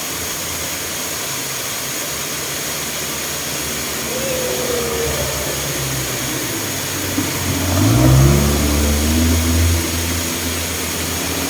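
A vehicle in motion, with a steady rush of road and wind noise. About eight seconds in the engine revs up with a rising pitch, then holds for a couple of seconds.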